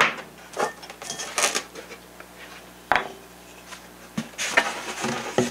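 Several short knocks and light clatters on a workbench as a foam model-airplane wing is picked up off it and handled.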